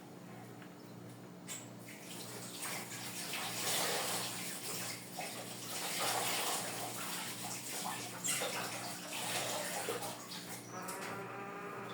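Water running from a tap and splashing, starting about two seconds in, its flow uneven and fluctuating.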